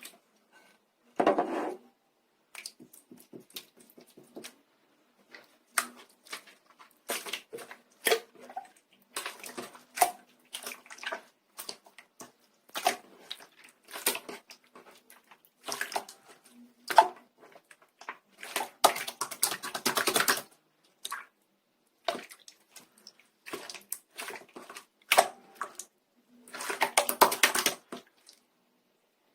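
Clear slime being squished and pressed by hand: irregular bursts of wet clicking and crackling, with two longer, louder stretches of squishing near the middle and near the end.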